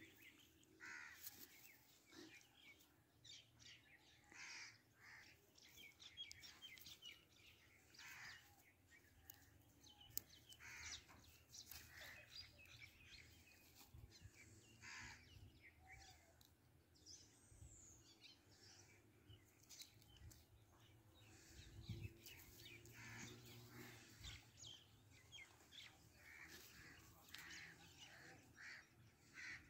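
Faint, short animal calls, repeated every second or two.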